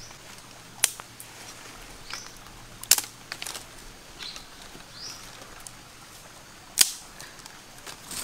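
Three sharp, loud clicks or snaps, about a second in, about three seconds in and near the end, over quiet outdoor background noise. Two short, high rising chirps fall between them.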